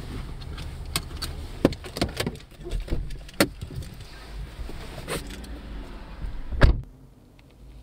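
Inside a Volkswagen car: scattered clicks and knocks over a low rumble as the driver gets out, then the driver's door shuts with a loud thump near the end, after which the cabin goes much quieter.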